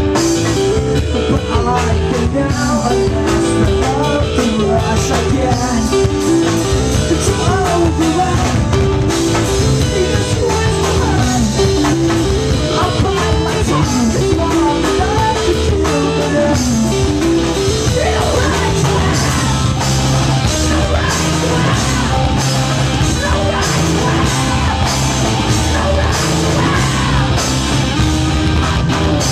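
Rock band playing live: electric guitars, bass guitar and drum kit at full volume, with singing over them.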